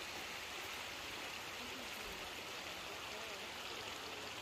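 Steady, faint rushing hiss of outdoor ambience, with faint distant voices.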